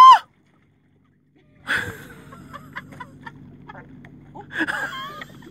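Short wordless vocal sounds from a woman straining as she climbs from a kayak onto rocks: a loud rising-and-falling exclamation at the start, then gasps and effortful noises. About a second of dead silence falls just after the opening exclamation.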